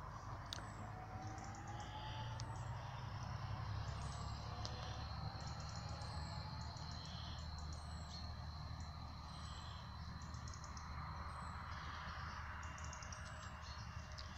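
Outdoor ambience: small birds chirping with short, high calls repeated every couple of seconds over a low steady rumble, with faint rising whines in the middle.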